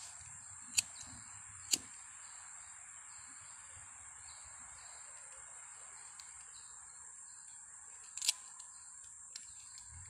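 Steady high-pitched insect chorus in forest, with a few sharp clicks: two in the first two seconds, a louder cluster about eight seconds in, and a faint one just after.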